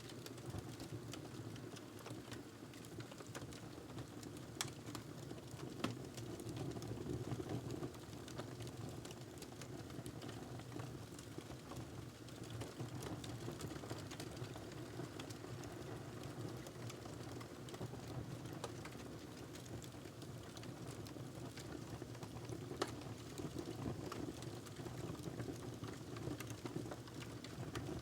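Wood fire burning in a fireplace: a steady low rumble of flames with scattered crackles and pops throughout, a few sharper pops standing out.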